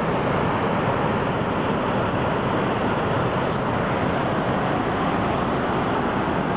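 Steady rushing of wind over the microphone mixed with the wash of the sea and the ship's wake, heard from the deck of a moving ship.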